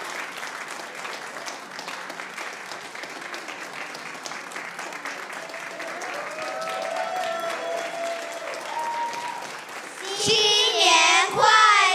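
Audience applauding. About ten seconds in, loud high-pitched voices call out, rising and falling in pitch.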